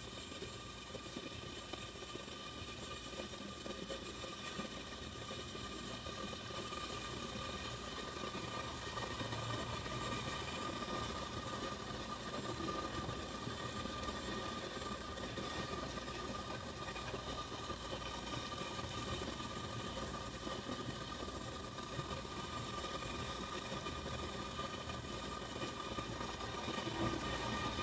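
Steady hum with several held tones over a low noise, a little louder from about eight seconds in.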